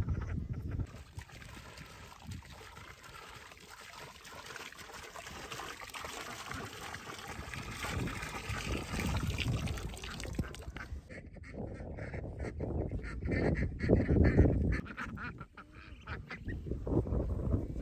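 Domestic ducks calling, with a stream of water poured from a clay jug onto the ground in the middle. Heavy low thuds come later, loudest about two-thirds of the way through.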